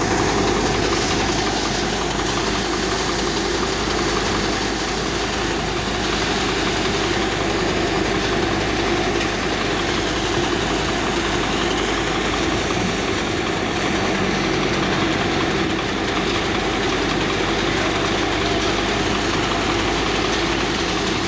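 Soybean thresher running steadily under load as armfuls of soybean plants are fed into its drum: a constant mechanical drone that keeps the same level throughout.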